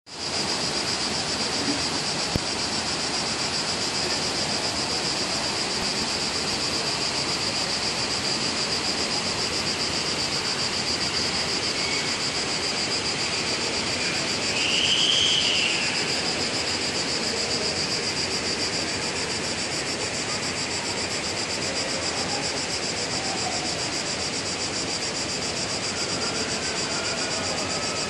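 Insects chirring steadily in a high, unbroken drone over a constant rush of flowing river water. About halfway through, a brief louder sound swells and falls away.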